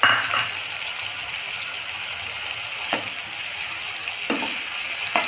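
Chopped tomato, onion and ginger-garlic paste sizzling in hot oil in a non-stick karahi, louder for a moment right at the start as the tomato lands in the oil. A spatula knocks and scrapes against the pan a few times in the second half.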